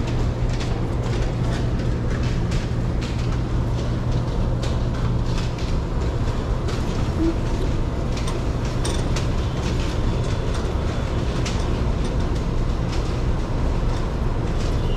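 Steady low rumble of a train in a railway station, with scattered clicks and knocks throughout.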